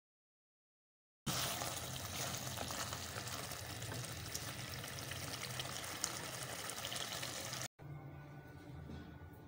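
Mutton liver masala (kaleji) sizzling in a pan of oil and gravy: a steady, even hiss with fine crackle that starts about a second in and cuts off abruptly near the end, leaving a faint low hum.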